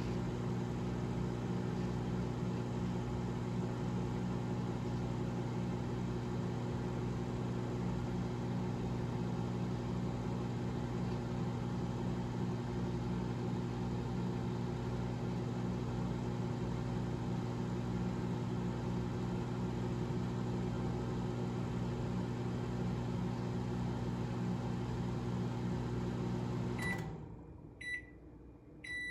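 Kenmore 72166993800 microwave/pizza oven combo's microwave running with a steady hum. It shuts off near the end, followed by short high end-of-cycle beeps.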